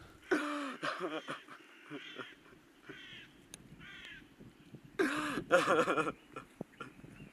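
Crows cawing: a loud run of harsh caws just after the start and another about five seconds in, with fainter calls between.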